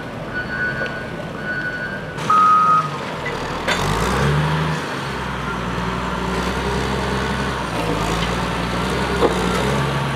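Heavy equipment backup alarm beeping steadily, then one louder, lower beep about two seconds in. From about four seconds a diesel engine of heavy earthmoving machinery runs steadily.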